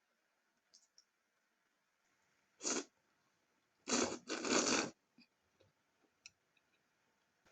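Cold soba noodles being slurped: three short slurps, one about two and a half seconds in and two close together about a second later, with a few faint clicks between them.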